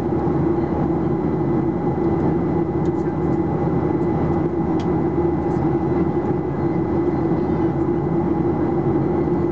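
Steady in-flight cabin noise of a Boeing 737-800 heard from a window seat over the wing: the CFM56-7B turbofan engines' drone mixed with the rush of airflow, carrying a faint steady high tone.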